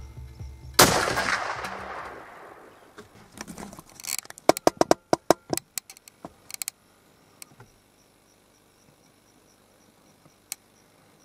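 A single rifle shot about a second in, its report rolling away over about a second and a half. A few seconds later comes a rapid run of about eight short, sharp clicks.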